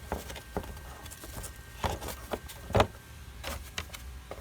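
Scattered clicks and knocks of a plastic engine-bay cover being handled and fitted back into place, with two louder knocks about two and three seconds in.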